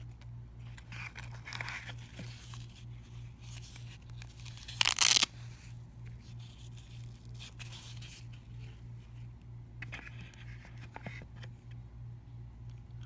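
Hook-and-loop (Velcro) fastener on a black nylon holster ripped apart once, a loud tear lasting about half a second, amid softer rustling of the nylon and the box being handled. A steady low hum runs underneath.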